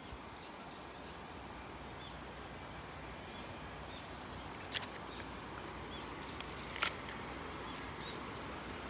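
A bird repeating short, high chirps over a steady outdoor noise, with two sharp clicks about five and seven seconds in.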